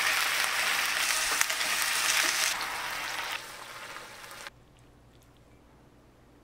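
Thinly sliced beef sizzling as it fries in oil in a stainless-steel skillet. The sizzle drops in level twice, then cuts off about four and a half seconds in, leaving faint room tone with a few light ticks.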